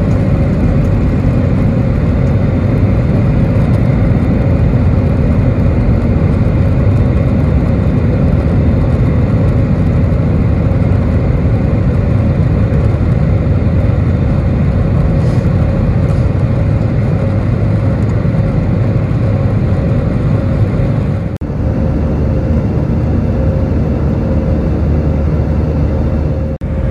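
Airbus A320's jet engines at takeoff thrust heard from inside the cabin: a loud, steady roar with a constant hum-tone running under it through the takeoff roll and climb. The level dips briefly twice near the end.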